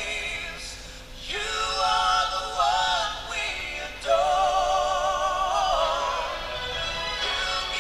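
Music with a singing voice holding long, wavering notes over an accompaniment, with short breaks between phrases about a second and four seconds in.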